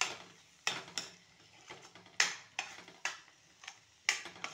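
Spatula scraping and knocking against a steel kadhai in quick, irregular strokes about twice a second, stirring a thick masala paste as it is sautéed.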